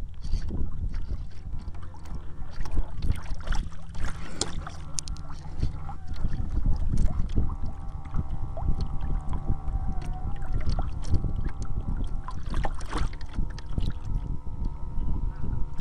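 Water rushing and splashing along the hull and deck of a Monsoon 900 RC sailboat heeled hard over, heard close-up from a camera mounted on its deck, with many irregular splashes and knocks. A faint steady hum joins about six seconds in.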